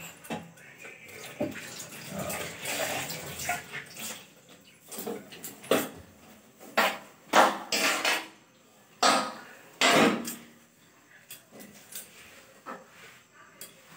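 Scrubbing and wiping a stainless steel gas stove: irregular rubbing strokes mixed with small metal clinks and knocks, busiest in the middle of the stretch.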